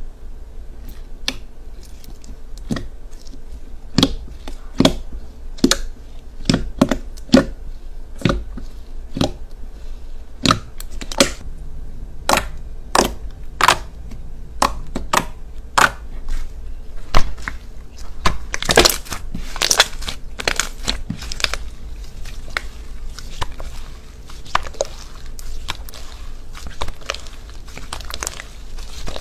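Slime being squeezed and pressed by hand, giving irregular sharp clicks and crackling pops, coming thickest about two-thirds of the way through.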